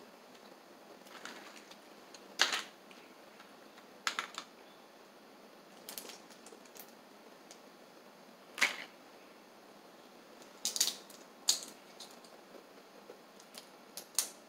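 Boiled crawfish shells cracking and snapping as they are peeled by hand: a scattering of sharp, separate cracks a second or two apart, with quiet between.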